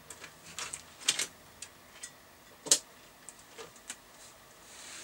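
A string of small clicks and taps as a speaker lead's plug is handled and pushed into the external-speaker socket of a York JCB861 CB radio, with one sharper click about halfway through.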